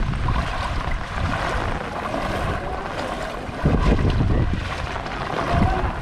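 Floodwater sloshing and splashing as someone wades through it, with wind buffeting the microphone. There is a louder burst a little past halfway.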